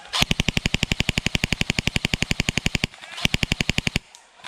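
Airsoft gun firing on full auto: one long burst of rapid, evenly spaced shots lasting nearly three seconds, then, after a brief pause, a second shorter burst.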